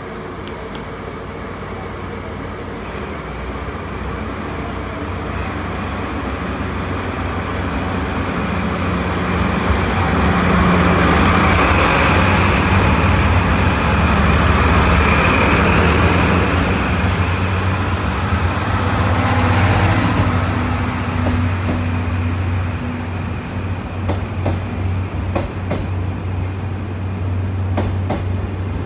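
A red diesel locomotive pulls a train of passenger coaches out of the station past the listener. Its low engine drone builds and is loudest in the middle as the locomotive goes by, then eases as the coaches roll past with sharp wheel clicks over rail joints near the end.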